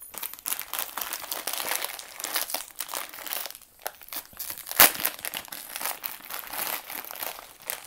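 Foil-lined Cheetos Poppers snack bag crinkling steadily as it is handled, then torn open with one sharp, loud rip about five seconds in.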